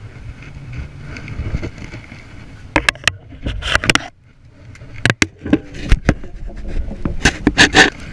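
Wind rumbling on a body-worn camera's microphone while a heavy spinning rod and reel are worked in a fight with a big fish. From about three seconds in come bursts of sharp knocks and clatter from the gear being handled against the boat, the loudest near the end.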